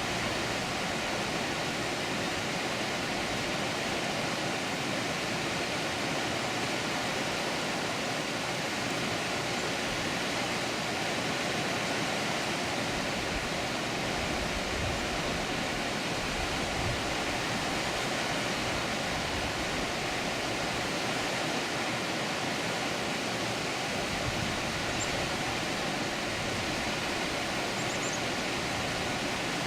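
Water pouring over a dam, a steady, even rush of falling water.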